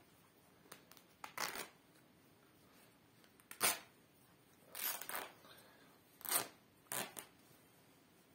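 A Lotto track jacket's fabric being ripped apart by hand in about five short tearing bursts spread over several seconds.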